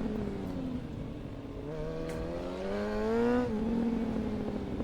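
Suzuki GSX-R 750's inline-four engine under the rider. The engine note sinks, then rises with the throttle from a bit under two seconds in. About three and a half seconds in it drops back and settles to a steadier lower note.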